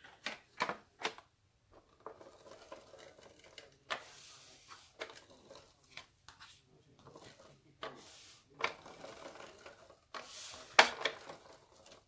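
An ATG adhesive tape gun run in a few short strokes along cardstock, a quiet rasping whirr each time the tape feeds, with paper rustling and light taps between.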